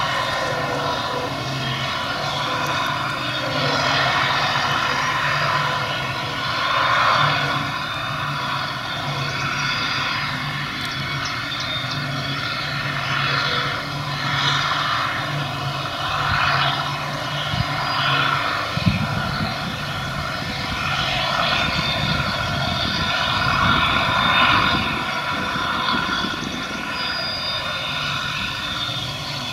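Claas Jaguar 950 forage harvester running steadily under load as it chops grass from the swath and blows it through its spout into a forage wagon. Its engine drone is joined by the tractor pulling the wagon. A deeper low rumble comes in about two-thirds of the way through.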